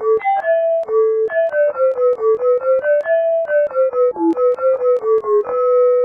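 A 'ding' notification sound effect pitch-shifted note by note to play a quick melody: a run of bell-like struck tones, mostly short with a few held longer, ending on a long held note near the end.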